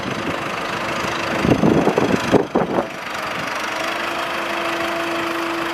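New Holland 7740 tractor's diesel engine running steadily as the tractor moves slowly in, with an uneven louder patch a couple of seconds in and a steady higher drone joining about four seconds in.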